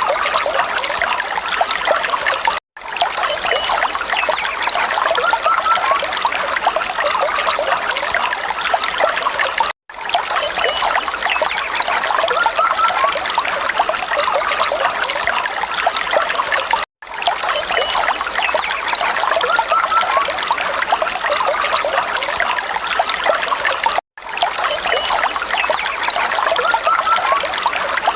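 Falling water trickling and splashing steadily, with brief total dropouts to silence about every seven seconds, four in all.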